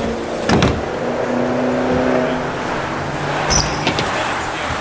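A BMX bike at a skatepark: tyres rolling over a steady background hiss, with a sharp knock about half a second in and a heavier knock about three and a half seconds in, as the bike comes off the box.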